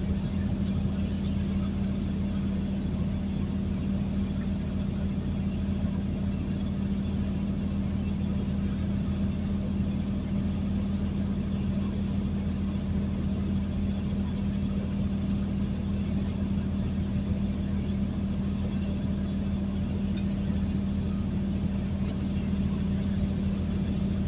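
A truck's diesel engine drones steadily, heard from inside the cab over tyre and road noise. The truck is pulling up a grade at a constant speed.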